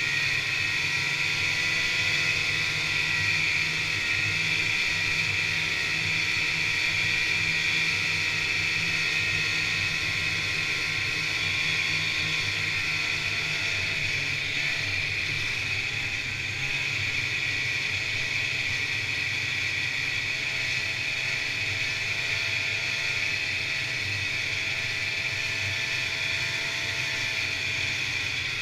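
1986 Polaris Indy Trail 488 snowmobile's fan-cooled two-stroke twin running steadily at trail cruising speed, with track and wind noise over the engine.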